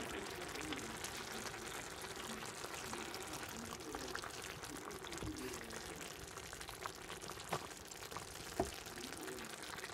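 A stew of meat and white beans simmering in a pan, a steady bubbling hiss. A wooden spatula knocks against the pan twice near the end.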